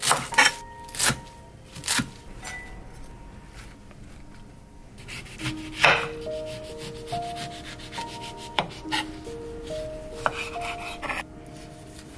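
Kitchen knife chopping leafy herb stems on a wooden cutting board: several sharp knocks of the blade on the board in the first two seconds, then slicing through a lemon with a few single knocks. Soft background music with sustained notes comes in about halfway.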